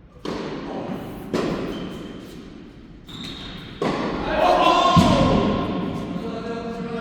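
Tennis balls struck by rackets, four sharp hits that echo around an indoor court, with a voice calling out over the second half.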